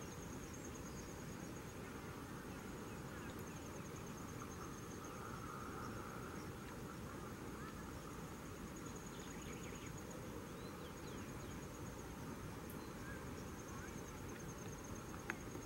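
An insect, cricket-like, trilling steadily with a fast high-pitched pulsing over a constant low hiss of forest ambience. A single sharp click comes near the end.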